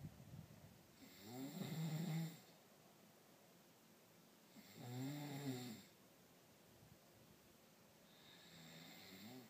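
A man snoring in his sleep: three long, drawn-out snores about three and a half seconds apart, each swelling and fading again.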